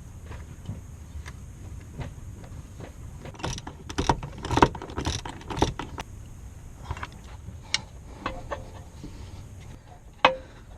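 Metal clinking and knocking of bolts, nuts and hand tools while a driveshaft bracket is bolted in, with a cluster of sharp knocks a few seconds in, over a steady low hum.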